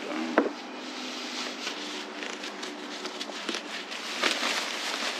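3M spray gun hissing steadily as it sprays gelcoat, with a sharp click about half a second in.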